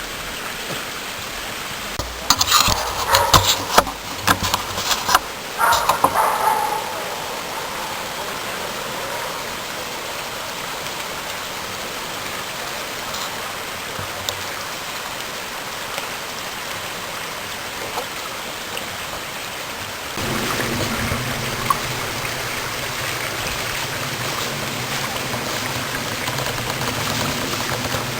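Steady rush of flowing river water. A few seconds in, a cluster of loud, irregular rustling and knocking noises lasts about five seconds, and about twenty seconds in a low rumble joins the rush.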